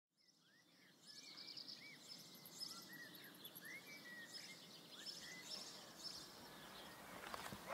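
Faint outdoor ambience fading in from silence over the first second, with scattered short bird chirps over a soft background hiss.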